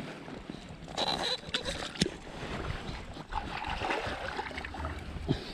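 Shallow water splashing and sloshing as someone wades at the water's edge, with a few short knocks.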